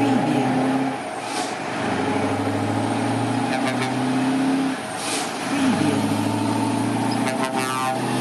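Truck engine running with a steady drone, its note dipping and breaking off a few times before picking up again, with a couple of short hisses.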